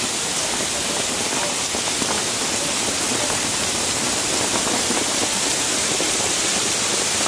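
Heavy rain mixed with small hail falling on gravel and paving, a dense steady hiss.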